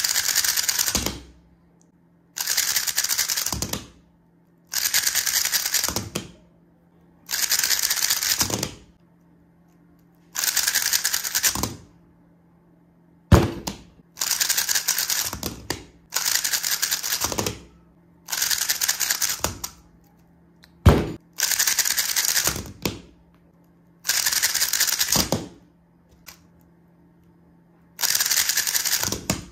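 A 3x3 speedcube being turned very fast in about a dozen separate bursts of rapid plastic clicking, each burst a little over a second long, with short quiet gaps between attempts. A couple of sharper single knocks stand out between the bursts.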